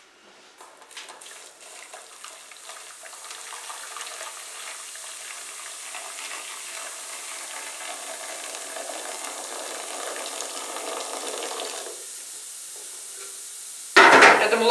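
Boiling water poured from a stainless-steel kettle into an enamel pot of bleaching granules: a steady splashing stream that grows a little louder, then stops about twelve seconds in. The hot solution keeps fizzing with a soft hiss afterwards.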